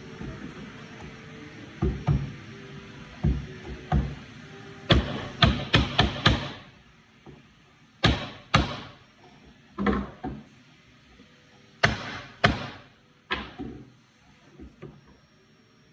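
Sharp knocks and taps from birdhouse parts being handled and fitted together: a quick run of about five around five seconds in, then single knocks spaced a second or two apart.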